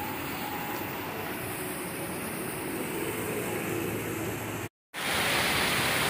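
Steady rush of water from a small indoor rock waterfall. After a brief dropout near the end, the rushing comes back louder and brighter.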